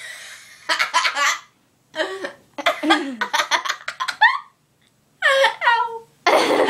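A girl in a laughing fit brought on by hiccups: breathless bursts of laughter broken by short gaps, with a few high squealing laughs that fall in pitch.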